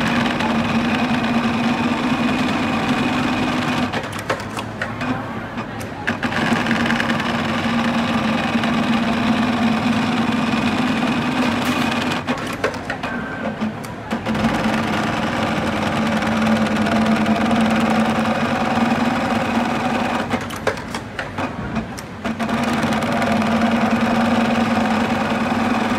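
Computerized pattern sewing machine stitching a shoe upper held in a template, running steadily in stretches of several seconds with three short pauses of about two seconds between them.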